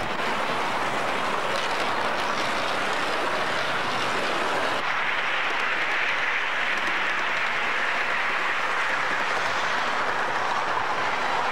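Model trains running on layout track: a steady rolling whir of wheels and motors on the rails, changing in tone about five seconds in.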